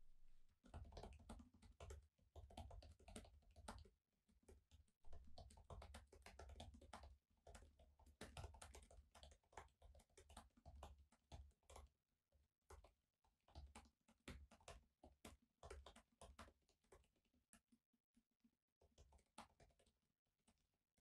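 Faint typing on a laptop keyboard: quick runs of key clicks with short pauses, thinning out to scattered clicks in the last few seconds.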